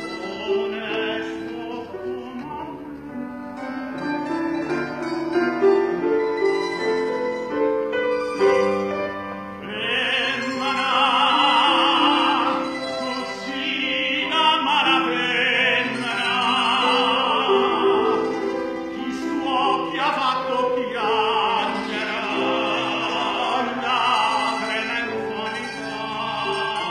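Operatic tenor singing a classical song with wide vibrato, over an accompaniment of short plucked-string notes. The voice swells louder from about ten seconds in.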